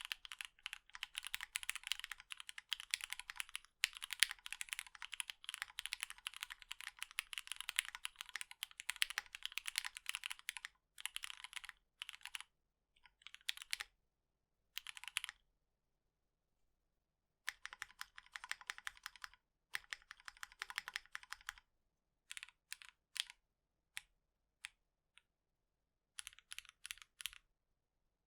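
Typing on a custom mechanical keyboard with lubed Gateron Milky Yellow linear switches and PBT keycaps. There is a fast, steady run of keystrokes for about the first ten seconds, then shorter bursts of typing separated by pauses.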